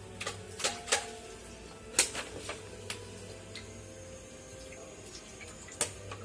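Sharp clicks and clinks of small metal parts being handled, several in the first three seconds and one near the end, over a steady low hum.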